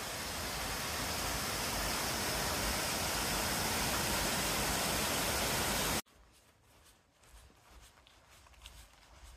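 Small woodland waterfall rushing steadily as it cascades down a rock stream bed; it cuts off abruptly about six seconds in, leaving much quieter forest sound.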